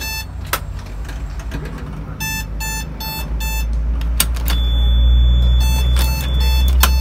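Seat-belt warning buzzer of a forklift's parking-brake and seat-belt monitoring device sounding short beeps in groups of four, about one group every three and a half seconds, signalling that the seat belt is not buckled. A few sharp clicks come as the belt is handled at the buckle, over a low rumble that grows from about three seconds in.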